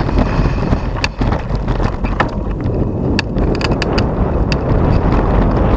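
Wind buffeting the microphone of a mountain bike riding downhill at speed, with scattered sharp clicks and rattles from the bike on the rough track.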